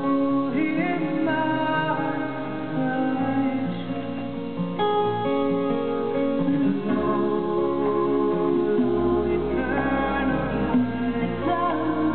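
Live acoustic music: an acoustic guitar and a resonator guitar playing together in a slow song, with a deep bass note coming in about seven seconds in.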